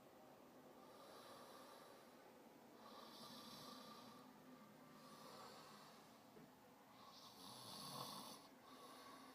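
Faint snoring of a sleeping man, a breath about every two seconds, the strongest near the end.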